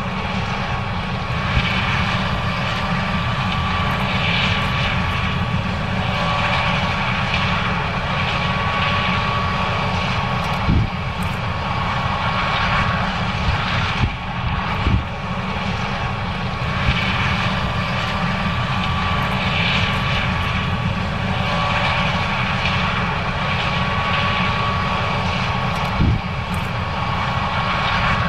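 John Deere 9610 combine running steadily while harvesting corn: a loud, even machine drone with a faint steady whine over it. A few brief thumps break through now and then.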